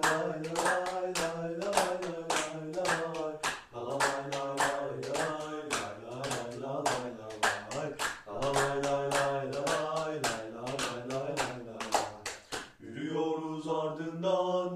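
A few male voices singing a wordless 'la la la' melody of a football terrace chant in unison, with steady hand-clapping about two to three claps a second. The clapping stops about two seconds before the end while the singing carries on.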